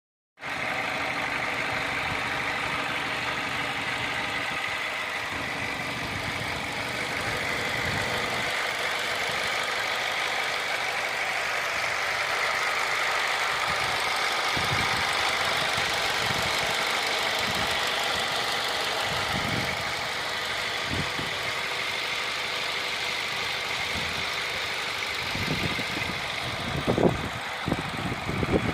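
A car engine running steadily, with a few dull thumps near the end.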